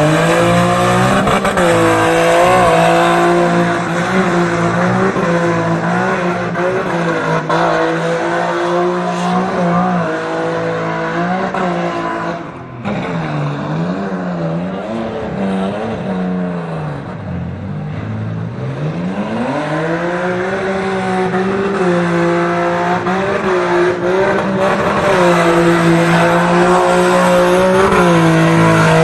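Car engine held at high revs, its pitch wobbling up and down, with tyres squealing as the car is driven hard. Around the middle the revs drop briefly and then climb back up.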